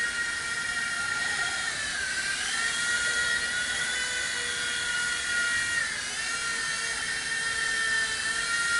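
WL-Toys V911 micro RC helicopter's electric motors whining steadily in flight. The pitch dips briefly and comes back up about two seconds in, and again about six seconds in.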